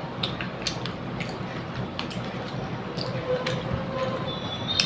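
Eating rice by hand: fingers squishing and pressing wet rice against a plate, with scattered small clicks, over a steady background noise.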